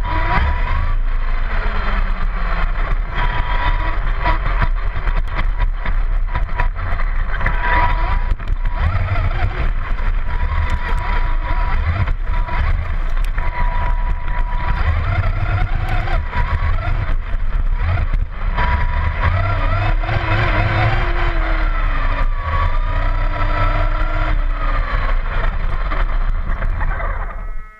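Onboard sound of a Vaterra Twin Hammers RC rock racer driving: its electric motor and gears whine, rising and falling in pitch with the throttle, over a constant rumble and rattle from the chassis and tyres on pavement and brush. The sound drops away just before the end.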